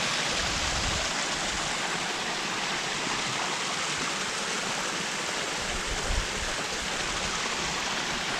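Steady rushing of a seven-metre, two-tiered waterfall. There are two brief low rumbles, one about a second in and one about six seconds in.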